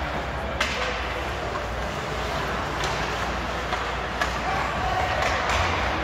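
Ice hockey play in an arena: a steady din of the rink with a handful of sharp cracks of sticks and puck, the clearest about half a second in and others around three, four and five seconds in.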